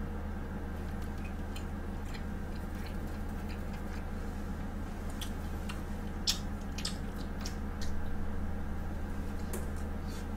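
Close-miked chewing of pizza: scattered small wet mouth clicks and smacks, with a cluster of sharper ones a little past halfway, over a steady low electrical hum.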